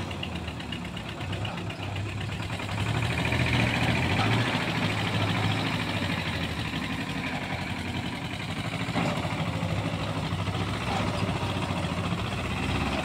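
Tractor diesel engine running steadily with a low, even hum, a little louder about three to four seconds in.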